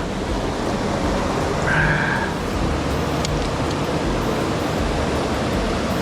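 Steady rush of a mountain stream's flowing water, with a brief high tone about two seconds in.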